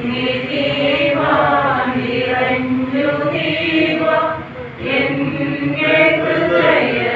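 A group of voices singing a slow prayer song together, sustained chant-like notes.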